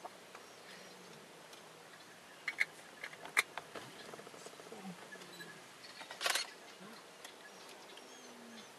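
A few sharp camera shutter clicks, about two and a half, three and a half and six seconds in, over quiet open-air background.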